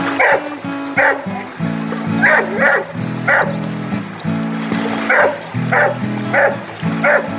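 Short, sharp dog barks, repeated every half second to a second, over background music with steady held chords.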